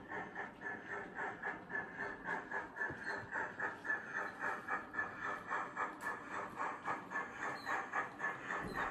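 Steam locomotive chuffing at a steady beat of about three to four exhaust beats a second, from a sound-fitted model of LMS 4F 0-6-0 No. 44236 hauling a goods train. The chuffing starts suddenly and keeps an even beat.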